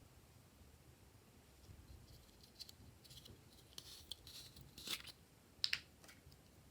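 Light, crisp clicks and scrapes of small things being handled, scattered and irregular, with a louder scrape about five seconds in and a sharp pair of clicks just after.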